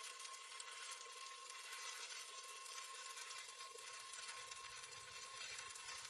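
Welding arc crackling and sizzling steadily, faint, with a thin steady tone throughout; a low hum comes in about four and a half seconds in.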